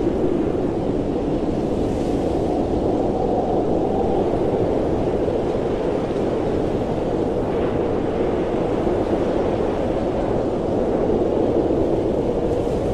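Blizzard wind blowing steadily, a low rushing noise that swells and eases slowly.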